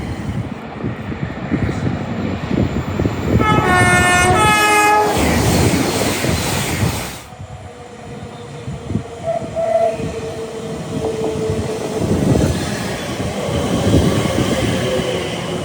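A British main-line train sounds its two-tone horn, a higher and a lower note one after the other, about three seconds in, then rushes past with loud wheel and air noise that drops away suddenly about seven seconds in. Train noise on the rails builds again near the end.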